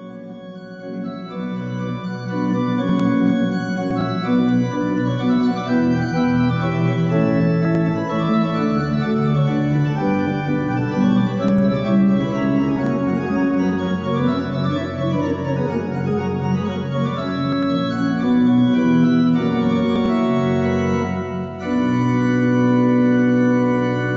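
Slow instrumental intro music of held organ chords, fading in at the start and changing chord every second or so; it breaks off briefly about 21 seconds in, then resumes with a long held chord.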